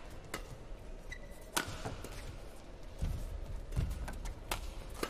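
Badminton rally: rackets striking a shuttlecock, a sharp crack every second or so, in a reverberant hall. Court shoes squeak and thud with the players' footwork between the shots.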